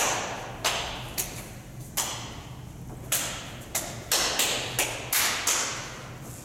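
A run of about a dozen sharp knocks or taps at an uneven pace, each trailing off briefly, coming faster in the second half.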